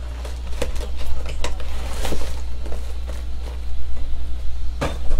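Steady low hum under scattered light clicks and knocks, with a louder cluster of clicks near the end.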